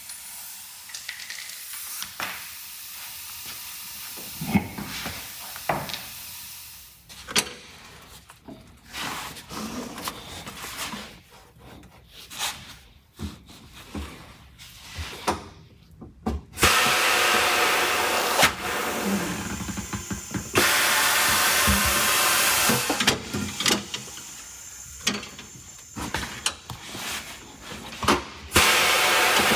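Tire-changing work on a pneumatic tire-changing machine: scattered clicks and knocks of tools, rim and tire. Loud bursts of compressed-air hiss come about halfway through and again near the end.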